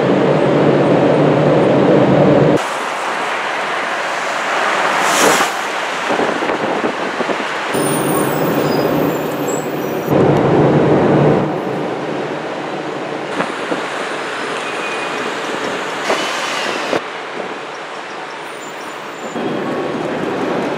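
Manhattan street traffic heard from the top deck of a moving tour bus: a steady engine hum at first, then passing vehicles and road noise. The sound changes abruptly several times between clips.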